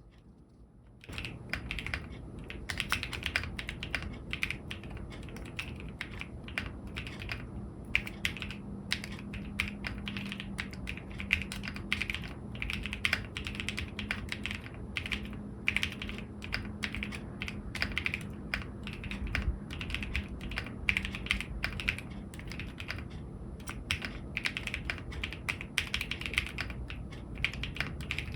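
Continuous fast typing on an Akko ACR75 v2 mechanical keyboard: a dense, uneven stream of key clacks that starts about a second in.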